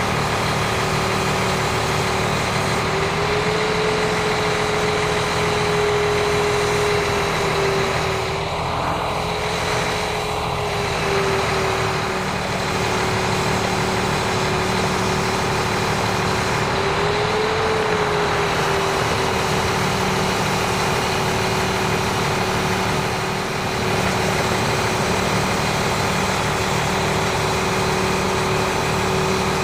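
Mack off-road truck's engine running steadily while the Schwing concrete pump boom is worked hydraulically, with a steady whine that rises slightly in pitch a couple of times as the boom moves.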